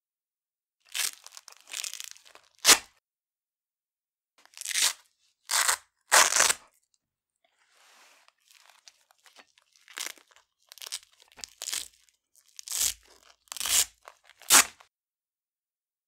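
Velcro hook pieces being ripped off a roller covered in Velcro loop fabric, one after another at different speeds: about a dozen rips with pauses between, some short and sharp, some longer and more ragged, with fainter scratching in the middle.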